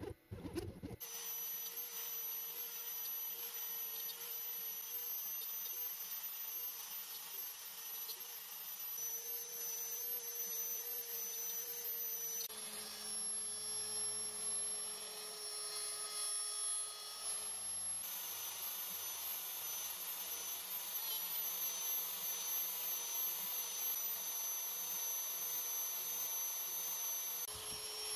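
DeWalt compact router running as a CNC spindle, its end mill cutting into solid maple, a steady high whine over a rushing noise. The pitch and tone change abruptly a few times.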